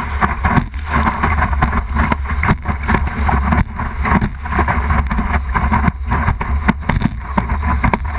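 Water rushing and splashing against an Original Windsurfer board's hull, an uneven rush broken by many short splashes, with wind buffeting the microphone of the board-mounted camera.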